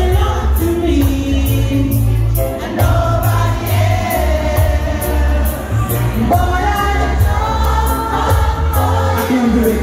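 Lovers rock reggae played loud over a PA: a heavy bassline, a steady hi-hat beat and a woman singing the melody.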